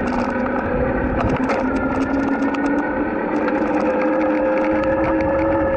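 Electric bike motor whining steadily as it rides along, its pitch rising slightly as it picks up speed, over wind and road rumble. Scattered rattling clicks come from the loose handlebar camera mount.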